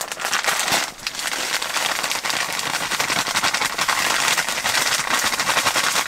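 Dry groundbait with breadcrumbs being poured and mixed by hand: a dense, steady crackling rustle of crumbs and grains.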